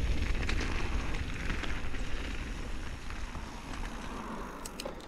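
Wind buffeting the action camera's microphone as a mountain bike rolls over a gravel track, with scattered ticks of grit under the tyres. The noise fades toward the end.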